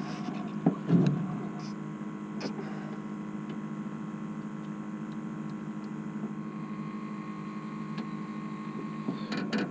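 Steady electrical-sounding hum with a faint high tone over it, with a few sharp knocks and bumps about a second in and light ticks later.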